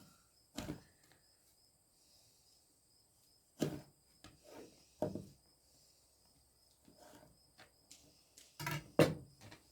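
Kitchen knife chopping through a celery root: about seven separate knocks, irregularly spaced, the loudest near the end.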